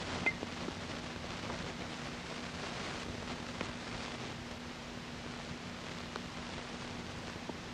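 A baseball bat hitting a ball once, a short sharp ping, just after the start, over a steady hiss and low hum; a few faint knocks follow.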